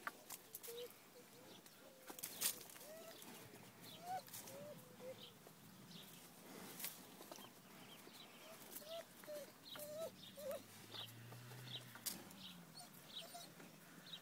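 Faint animal calls: short squeaky yelps that rise and fall, repeated irregularly, with some higher chirps and a few sharp clicks and rustles.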